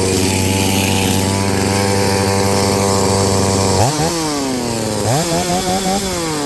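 Stihl 381 two-stroke chainsaw running at a steady high speed; its idle is set way too high on the carburetor. About four seconds in the revs dip and pick up twice, then settle lower.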